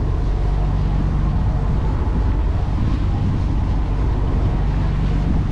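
Passenger boat's engine running steadily under way: a continuous low drone heard on board.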